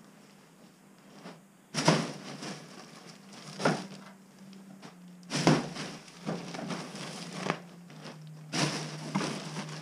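Plastic-wrapped bales of hemp wool insulation being handled on a wooden loft floor: crinkling of the plastic wrap and dull knocks, in three main bursts about two, five and a half, and eight and a half seconds in.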